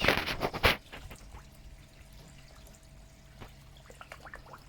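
A short loud splash in the first second, then water steadily pouring and trickling into a koi pond, with small drips.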